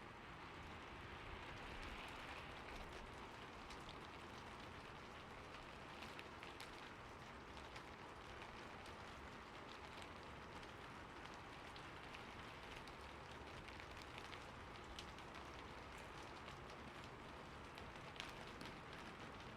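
Steady rainfall, an even hiss with many individual drops ticking and pattering on a surface.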